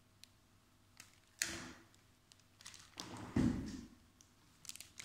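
Packaging being handled on a wooden table: a sharp knock about a second and a half in, followed by a short rustle, then a duller, deeper thump about two seconds later, as of a pack being set down, with a few small clicks near the end.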